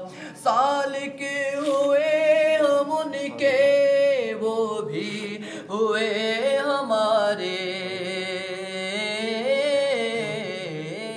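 A man's unaccompanied voice singing a naat, drawing out long, wavering melismatic phrases with no instruments.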